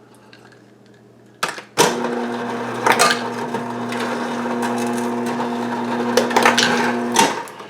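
Refrigerator ice dispenser switching on with a click, its motor running steadily for about five seconds with ice clattering out, then stopping abruptly. It is working again on a newly replaced micro switch.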